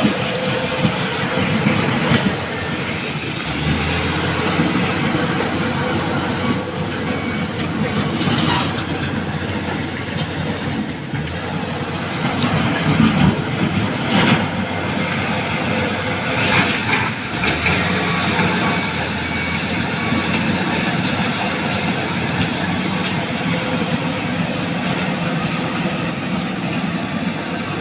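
Bulldozer working: a steady heavy-machine running noise with scattered sharp metallic clanks.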